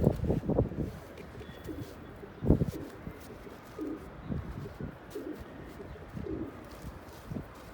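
Domestic pigeons cooing, a run of low, rounded notes repeating every second or so. A few dull knocks sound near the start and about two and a half seconds in.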